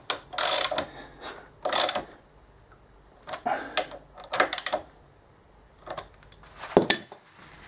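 Socket ratchet clicking in short runs as the front brake caliper bolts of a motorcycle are tightened, with a sharper single knock near the end.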